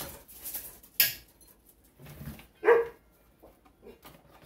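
A dog barks once, short and sharp, near the middle, with a sharp click about a second in and soft handling noises from a case and cardboard box between.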